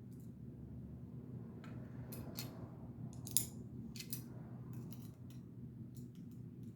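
Small metal folding-knife parts clicking and tapping as they are handled, with one sharper click about three and a half seconds in, over a steady low hum.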